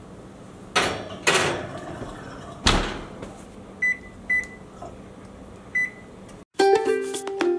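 Clatter of a metal pan going onto the oven rack and the oven door shutting with a thud, then three short electronic beeps from the electric range's touch control panel as its buttons are pressed. Near the end a ukulele tune begins.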